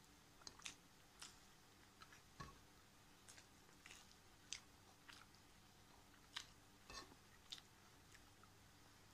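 Faint chewing and eating sounds of a person eating by hand: scattered short mouth clicks and smacks, about a dozen in all.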